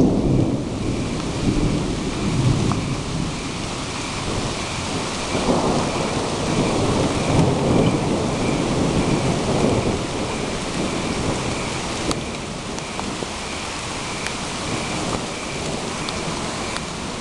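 Thunderstorm: steady rain with thunder rumbling, heaviest near the start and again from about five to ten seconds in.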